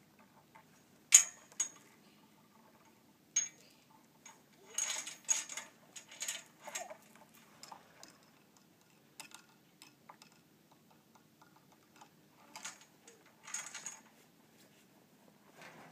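Metal farm-gate chain and latch clinking and rattling as a small child handles them: sharp ringing clinks, the loudest about a second in, with rustling and shuffling in between.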